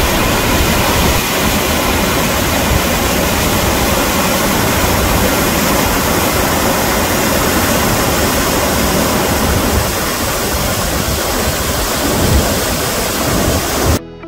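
Loud, steady rush of fast-flowing river water, an even hiss without any rhythm, that cuts off suddenly near the end.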